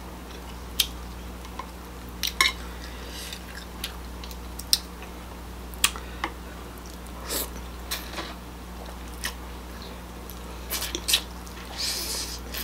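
Close-up sharp clicks and snaps of king crab leg shell being picked apart by hand, with wet biting and chewing sounds near the end. A steady low electrical hum lies underneath.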